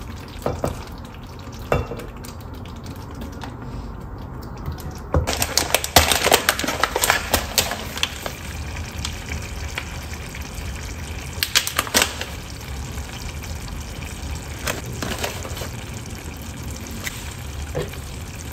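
Metal spoon scraping and clinking against a steel saucepan and an earthenware pot as thick soybean-paste stew is spooned in, over a low steady simmering sound. The clattering is busiest about six to eight seconds in.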